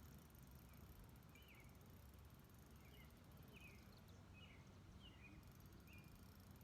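Quiet outdoor ambience: a low steady rumble with about ten short, faint bird chirps scattered through it, and a thin high buzz that stops about four seconds in and comes back shortly after.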